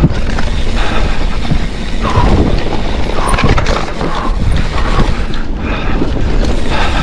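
Hardtail mountain bike ridden fast down a rough trail: tyre noise and wind over the microphone, with constant rattling and knocks from the bike over rough ground.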